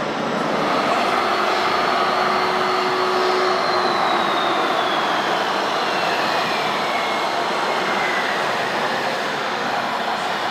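Radio-controlled model construction machines running: a steady mechanical whirr from their electric drives and gearing, with a motor whine that falls in pitch from about three and a half seconds in until about eight seconds in.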